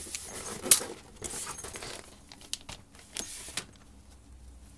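Plastic packaging crinkling and rustling as headphones are handled in their box, in irregular bursts with one sharp, loud crackle about a second in, quieter near the end.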